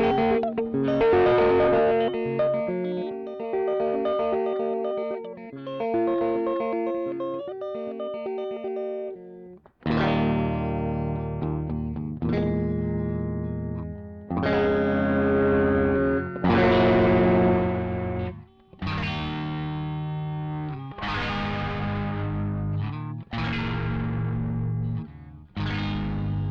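Electric guitar played through a Caline 'British Sound' overdrive pedal, from a looped recording. A picked single-note line runs for about the first nine seconds, then after a brief break come distorted chords, struck about every two seconds and left to ring.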